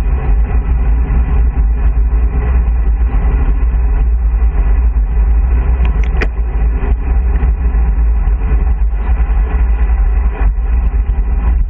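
Wind rushing over the microphone of a camera on a road bike descending at about 30 to 35 km/h: a loud, steady, low rumble. A single sharp click about six seconds in.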